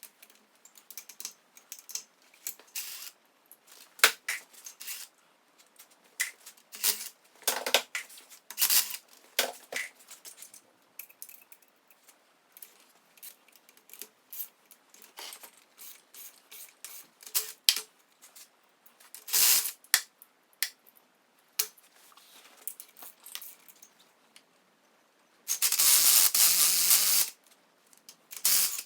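Hand tools working the case nuts and bolts of a VW Type 1 1600 engine: scattered sharp metallic clicks and clinks of wrench and socket on steel fasteners and the engine case. Near the end comes a louder rattling stretch of nearly two seconds.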